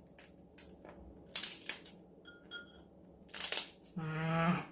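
Crab shell being cracked with a hand-held crab cracker: a run of sharp cracks and crunches, with two very short squeaks a little past halfway. A short voiced sound from the eater comes near the end.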